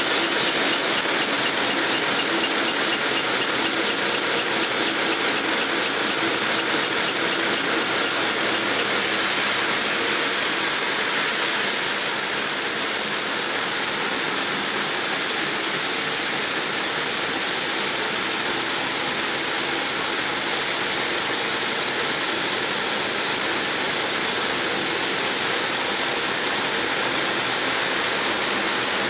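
Multi-blade granite block cutter sawing through a granite block under cooling water spray: a steady mechanical noise with the hiss and splash of water and a high, even whine over it.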